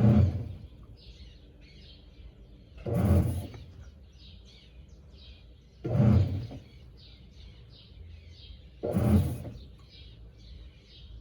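GE Imagination 10 kg top-load washing machine agitating its load: a short churning stroke of water and motor about every three seconds, with pauses between. Birds chirp faintly in the background.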